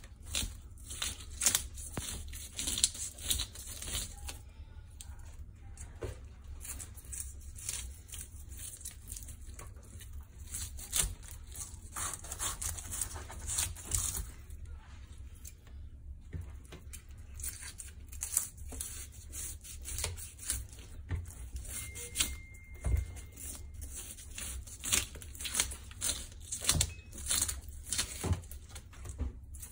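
Kitchen knife scraping the scales off a sea mullet on a wooden cutting board: quick repeated scraping strokes in runs, with short pauses between runs.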